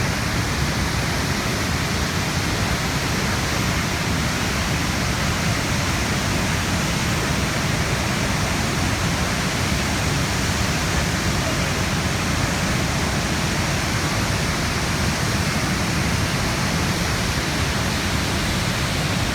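Niagara Falls: a huge mass of water falling and crashing, a loud, steady rush heaviest in the low end.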